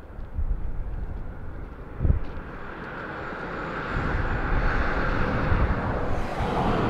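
Outdoor ambience with wind buffeting the microphone in low rumbling gusts and a thump about two seconds in. A broad rushing noise from a passing vehicle swells from about three seconds in and eases near the end.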